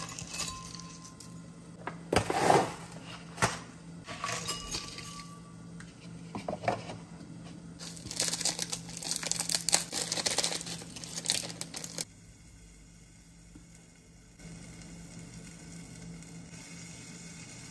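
Plastic seasoning sachets crinkling and tearing as they are opened and squeezed out over dry rice noodles in a ceramic bowl, with a few light knocks of the noodle cup against the bowls in the first seconds. The crinkling is thickest for a few seconds past the middle, then stops, leaving a low steady hum.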